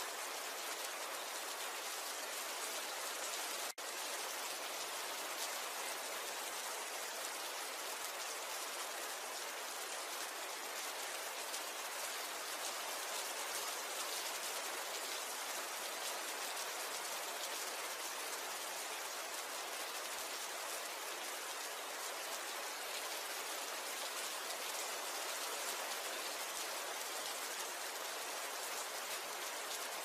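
Steady rain falling, an even hiss that holds level throughout, broken by a momentary dropout a few seconds in.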